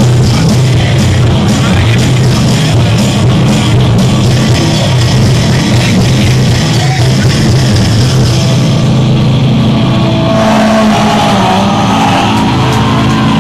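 Loud grindcore-style metal played live by a guitar, bass and programmed-drums band. About ten seconds in, the dense playing drops away, leaving held, ringing tones.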